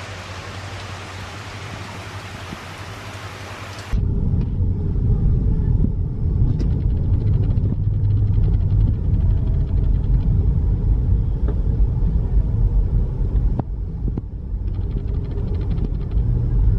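Steady hiss of heavy rain falling. About four seconds in it cuts to the low, steady rumble of a car driving on a wet, flooded road, heard from inside the cabin.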